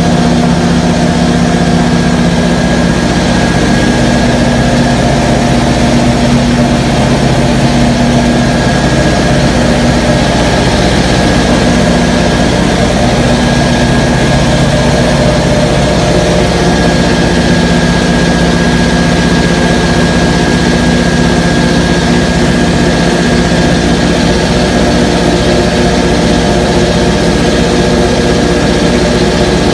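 Belt-driven piston air compressor running steadily under load, pumping air into its tank. Its three-phase electric motor is running on power from a single-phase transformer-generator.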